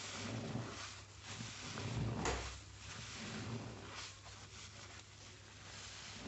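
A water-soaked sponge squeezed and kneaded by rubber-gloved hands in soapy suds: a row of wet squishes under a second apart, the loudest about two seconds in.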